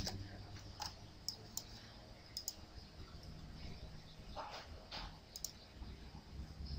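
Computer mouse clicking: a handful of short, sharp single clicks at uneven intervals, with a faint low hum beneath.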